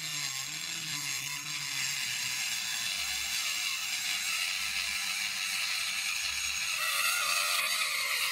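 Dremel rotary tool grinding steel on a small-engine cam part, the compression-release pin, to give clearance to the crankshaft. It makes a steady high grinding whine that grows slightly louder near the end.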